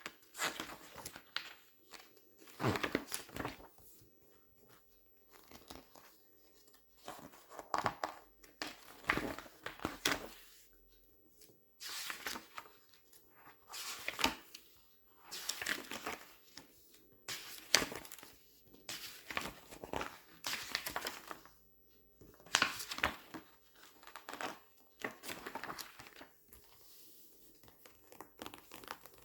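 Glossy paper pages being turned and squeezed, crinkling in short bursts about every one to two seconds with quiet between.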